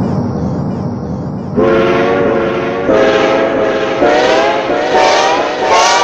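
Train horn sound effect from a soundboard app. After a low rumbling noise, the multi-note horn chord sounds about five times in quick succession, starting about a second and a half in, and each blast is higher in pitch than the one before.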